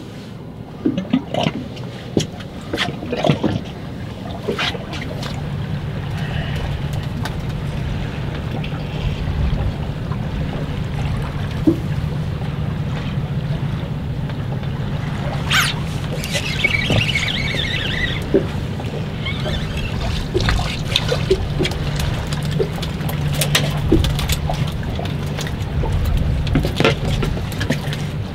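Fishing boat on open water: a steady low engine hum with water slapping and trickling around the hull. Scattered short clicks and knocks come on top.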